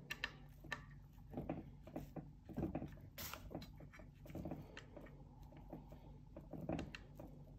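Faint, irregular clicks and light knocks from an Allen key turning bolts into a metal bracket on a plastic spoiler wing piece, with a sharper click about three seconds in.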